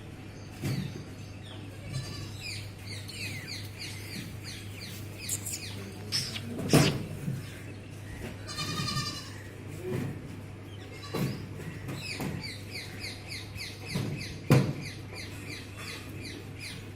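Goats bleating, including one wavering bleat about halfway through, over steady bird chirping, with two sharp knocks about 6 and 13 seconds apart and a low steady hum.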